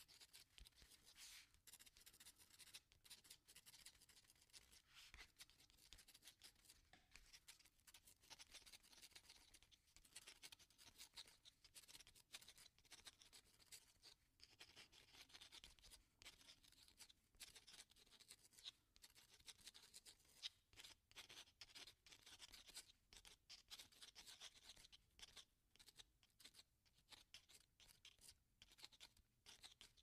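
Pen writing on paper: quiet, quick scratching strokes in a continuous run, broken by brief pauses.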